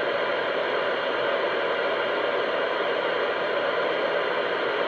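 CB radio speaker putting out a steady hiss of static, cut off above and below like radio audio.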